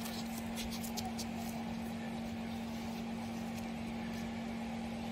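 A steady low hum over a faint even hiss, like a small motor or fan running, with a few faint scrapes of hands working moulding sand in the first second or so.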